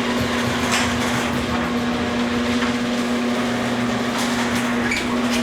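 Garage door opener motor running with a steady, even hum as the door travels along its rails, with a few scattered clicks and knocks from the door's rollers and track. This is the test run after a bent rail was straightened.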